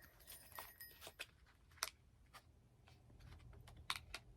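Near silence with a few faint, scattered clicks and taps as small packaged items and cards are handled.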